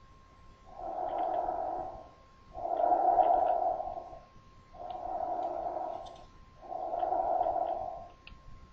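Normal laryngotracheal breath sound heard through a stethoscope over the larynx at the front of the neck: four blowing breath sounds, each about a second long, alternating inspiration and expiration with a short pause between them. It is a sign that the larynx and trachea are open.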